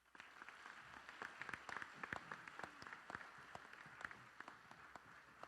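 Audience applauding: many hands clapping at once, starting suddenly and dying away at the end.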